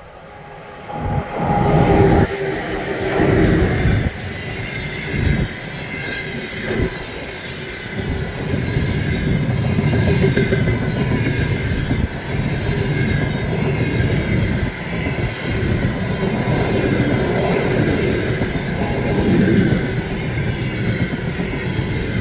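A passenger train hauled by a ChS7 electric locomotive passing at speed, close by. It gets suddenly loud about a second in, then the wheels knock and rumble over the rail joints, with a steady high whine running under it.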